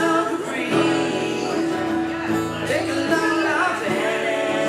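Band music led by guitar, with a singing voice.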